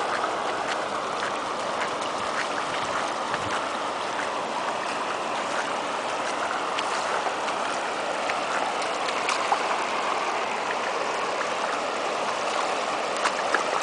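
Floodwater flowing steadily across a road, a continuous even rush of running water.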